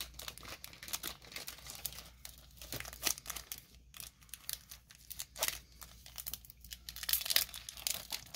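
Foil wrapper of a Pokémon trading card booster pack crinkling in the hands and being torn open, with irregular crackles that grow denser and louder near the end as the top is ripped.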